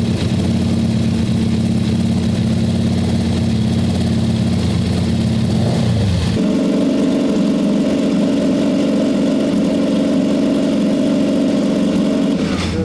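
An engine running at a steady speed. About six seconds in its pitch rises quickly and holds higher, then it drops back near the end.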